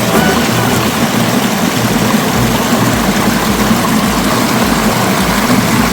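Waterfall rushing steadily, with a low, regular beat of background music under it about twice a second.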